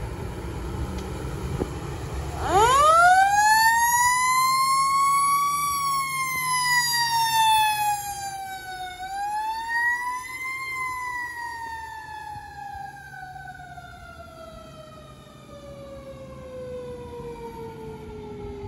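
Federal Q2B mechanical siren on a fire rescue ambulance spinning up about two and a half seconds in. It climbs steeply to a high wail, winds down, gets a second short boost, then coasts down in a long, slowly falling tone. The truck's engine runs low underneath before the siren starts.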